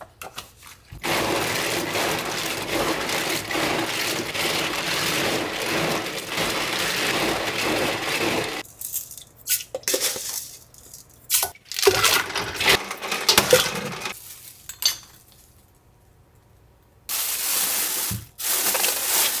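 Live cockle shells clattering and grinding against each other and a steel bowl for about seven seconds, a loud rattle as they are handled. Then a few scattered clinks and knocks on a steel pot and strainer, and near the end a plastic bag crackling.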